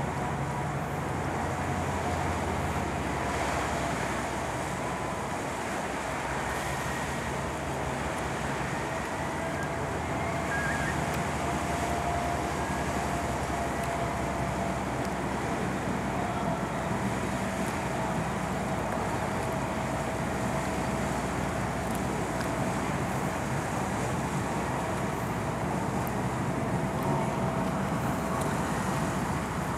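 Issaquah-class ferry M/V Sealth's diesel engines and propellers running steadily as it maneuvers into the ferry slip, a low engine drone with a thin steady whine above it and water churning in the prop wash.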